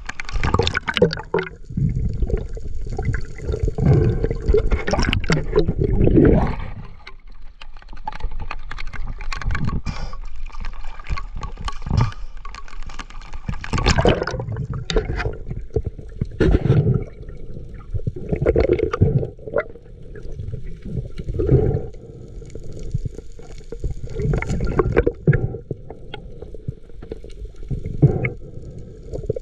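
Seawater sloshing and gurgling around the camera in irregular surges, with brief splashes.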